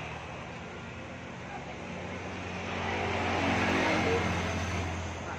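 A motor vehicle passing by, its engine hum growing louder to a peak about three or four seconds in and then fading away.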